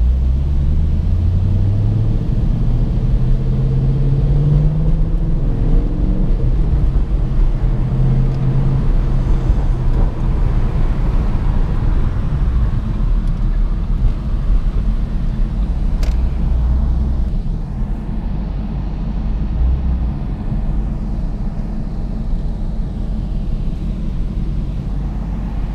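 2014 Shelby GT500's supercharged 5.8-litre V8 heard from inside the cabin, rising in pitch under acceleration for the first few seconds, dropping at a gear change, then settling into a low steady rumble for the rest.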